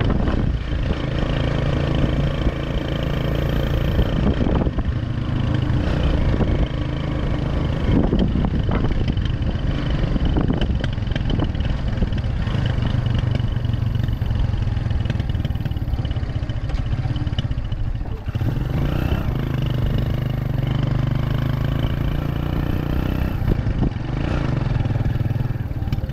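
Engine of the vehicle being ridden in, running steadily at low speed with rattling from the body, heard from inside.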